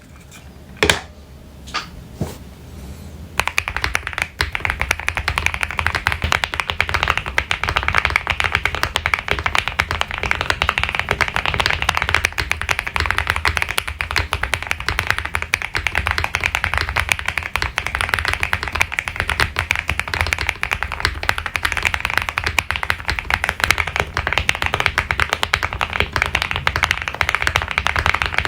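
Meletrix Zoom65 mechanical keyboard with lubed and filmed switches: a few single keystrokes, then fast, continuous typing from about three and a half seconds in.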